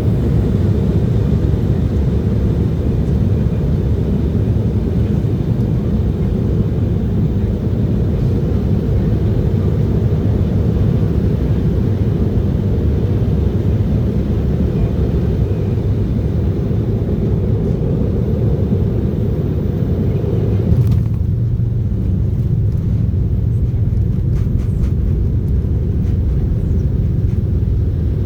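Boeing 737-800 cabin noise during landing: a loud, steady low rumble of engines and airflow. About two-thirds of the way through there is a brief knock, and the higher hiss drops away, leaving the low rumble.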